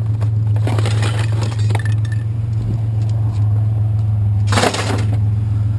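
Loose metal tools and scrap clinking as they are rummaged through, with a louder clatter about four and a half seconds in, over a steady low drone.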